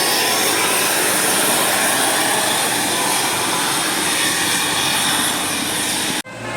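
A bus driving past at close range: a loud, steady rushing roar of engine and wind, which cuts off abruptly near the end.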